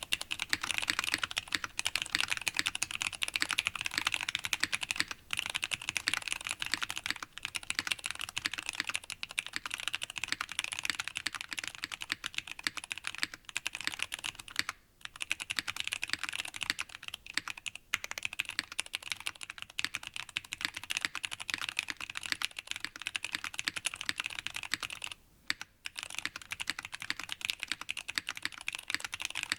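Fast continuous typing on a 65% mechanical keyboard with o-ring-mounted FR4 plate, lubed Zealios v2 tactile switches and GMK keycaps, a dense run of keystroke clacks with a few brief pauses.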